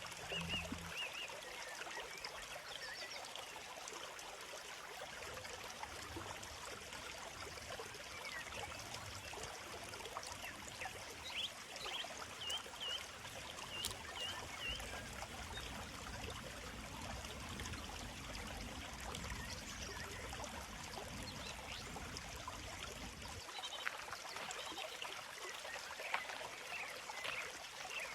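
A small stream babbling steadily, with birds chirping in short repeated notes: a run of chirps about halfway through and more near the end.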